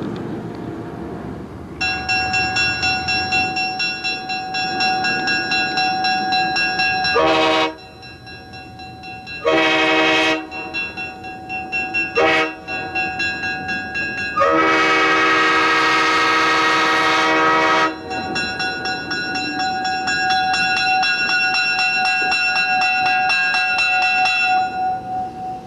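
Alco Century diesel locomotive blowing its horn for a grade crossing: three short blasts, then one held for about three seconds, over the rumble of its diesel engine. A bell starts ringing steadily about two seconds in and carries on until near the end.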